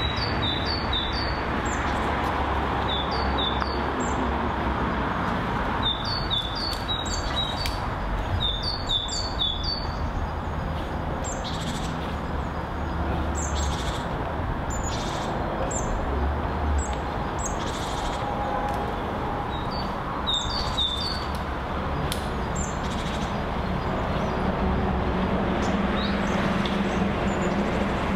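Small birds chirping: quick runs of three to five short high notes, repeated in several bursts with gaps between them, over a steady low background rush.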